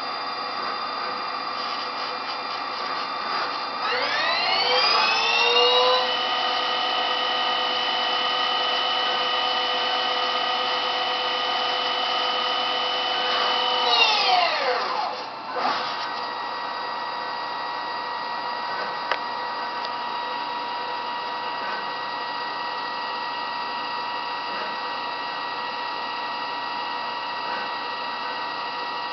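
Haas TL-series CNC lathe running a program: a steady machine hum with a whine from the spindle drive, which rises in pitch up to speed about four seconds in, holds steady, then winds down around fourteen seconds in. A single short click comes a few seconds after the spindle stops.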